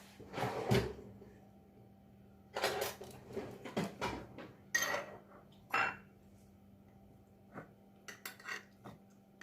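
Kitchen containers and utensils being handled as a jar of preserved lemons is brought out: several separate knocks and clinks over the first six seconds, then a few lighter clicks near the end.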